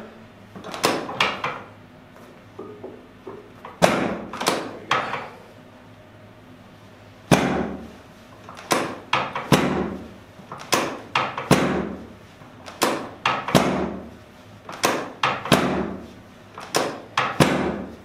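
Chiropractic drop table's pelvic section dropping under repeated hand thrusts: a series of sharp clacks, mostly in pairs about half a second apart, a pair every couple of seconds.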